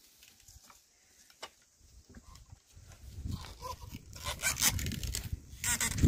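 A pair of oxen pulling a wooden plough through dry hillside soil, with the movement noise of the team rising from about halfway through. Short pitched calls, animal or human, come twice in the second half.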